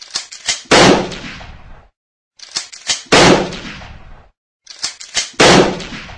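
Gunshot sound effect played three times, evenly spaced: each time a few quick clicks, then a loud shot that rings away over about a second.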